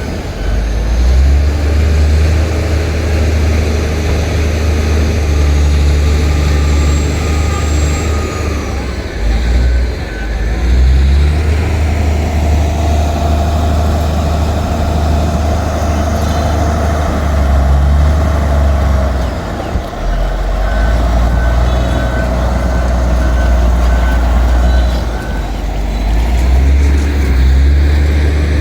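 Bulldozer's heavy diesel engine running under load, its pitch and level shifting as it works, with a back-up alarm beeping in short spells.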